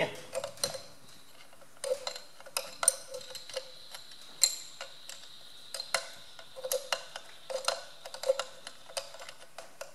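Steel spanner clicking and clinking against a water pump bolt in many short, irregular strokes as the last bolt is worked loose by hand.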